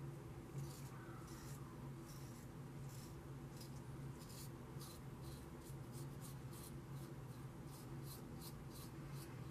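Ming Shi 2000S adjustable double-edge safety razor scraping through lathered stubble in many short, quick strokes, each a brief crisp rasp, over a steady low hum.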